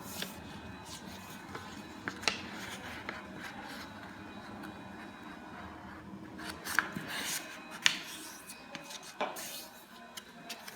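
Sheet of craft paper rustling and rubbing as it is folded and creased by hand, with a few sharp crackles scattered through.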